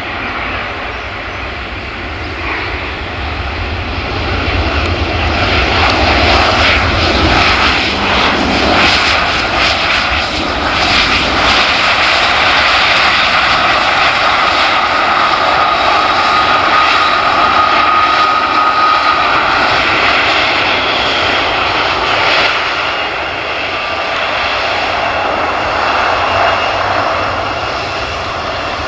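Bombardier CRJ regional jet's two rear-mounted turbofan engines during the landing rollout: a continuous jet roar that swells about four to six seconds in as the aircraft decelerates, holds loud with a steady high whine through the middle, then eases off a little near the end.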